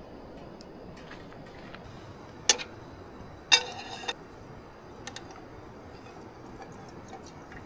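Wood fire crackling in a small fold-out card stove: sparse light ticks over a low steady hiss, with a sharp pop about two and a half seconds in and a short, louder ringing knock about a second later.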